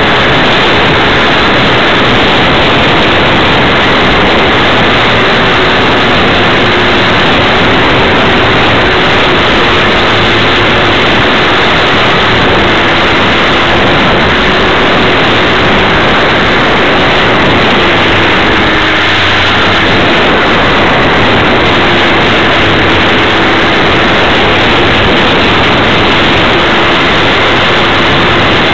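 Model biplane's motor and propeller running in flight, heard from a camera riding on the plane: a loud steady rush of wind and propeller noise with a faint motor hum whose pitch wavers slightly and dips briefly about two-thirds of the way through.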